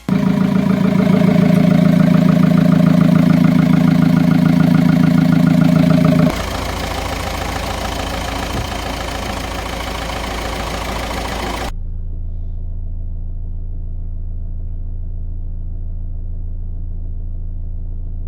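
1.9 TDI PD four-cylinder diesel engine running steadily, loud for the first six seconds and then suddenly quieter. About twelve seconds in the sound turns muffled, leaving only a steady low drone.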